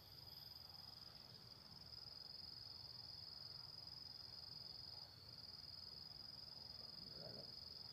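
Faint, steady, high-pitched chirring of insects, held as one unbroken tone.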